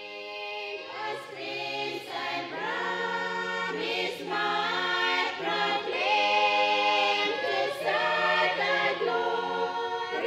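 A choir of women singing in harmony, moving through a new held chord every second or so and growing louder over the first few seconds.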